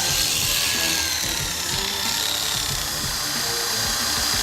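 Oster A5 Turbo two-speed electric hair clipper running steadily with its blade on, super loud. The noise comes from play in the blade-drive link and lever; holding the lever quiets it.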